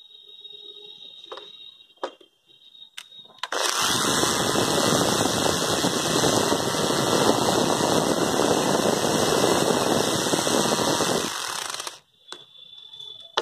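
Cordless drill-driver running steadily for about eight seconds, driving a screw into a wooden plank. It starts a few seconds in and stops abruptly near the end, with a few faint clicks before it.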